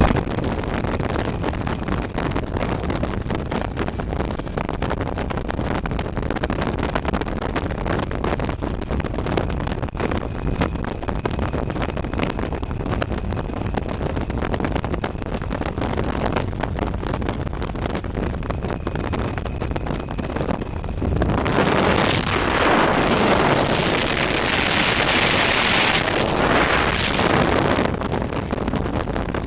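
Steady road and wind noise of a car at highway speed, heard from inside the car. About two-thirds of the way through, a louder, hissier rush of wind comes in for several seconds, then eases off near the end.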